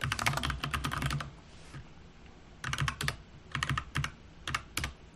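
Typing on a computer keyboard: a quick run of keystrokes in the first second, then a pause, then several separate key taps through the second half.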